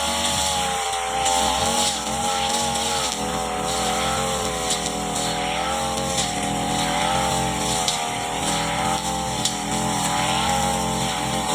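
Brush cutter's small petrol engine running at high speed. Its pitch steps up at the start and then wavers up and down as the throttle and cutting load change.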